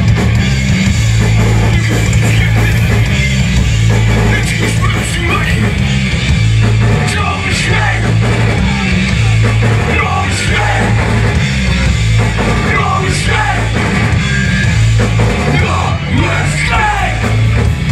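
Hardcore punk band playing live through a club PA, with heavy bass, guitars, drums and vocals. The heavy low end dominates.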